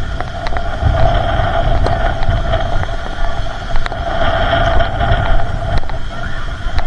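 Wind buffeting the microphone over a steady motorboat engine drone, with scattered small clicks.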